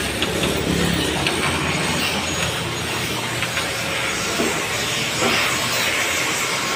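Steady mechanical running noise with a hiss and a low rumble, and a few faint clicks.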